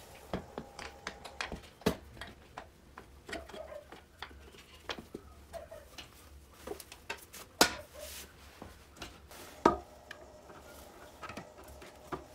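Scattered clicks, taps and knocks of a padded seat being fitted onto a painted steel moped frame, with two sharper knocks past the middle, about two seconds apart.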